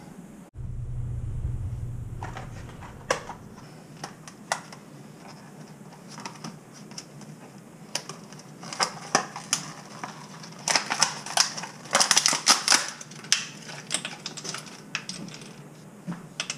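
Plastic packaging of a replacement Moen 1225 faucet cartridge being handled and opened: irregular clicks and crackles, scattered at first and thickest from about the middle on.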